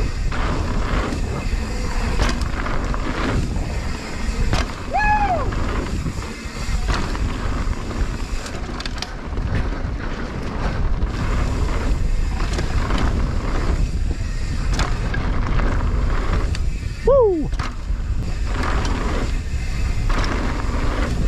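Mountain bike descending a rough dirt trail: tyres rolling over bumpy ground under a steady low rush, with many knocks and rattles from the bike. Two short squeals that bend in pitch, about five seconds in and again a few seconds before the end, the second one the loudest sound.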